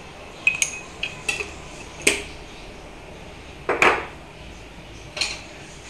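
A metal spoon clinking against an aluminium pressure cooker, several short sharp taps with a brief metallic ring, while turmeric powder is added to mung beans in water.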